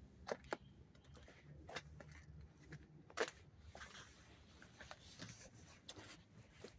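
Handling noise from a handheld camera: scattered soft clicks and scuffs, the loudest about three seconds in, over a faint low steady hum.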